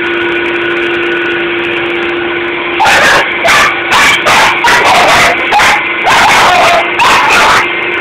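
A Dyson vacuum cleaner running with a steady hum, then from about three seconds in a dog barks at it about ten times in quick succession, loud and sharp, over the vacuum.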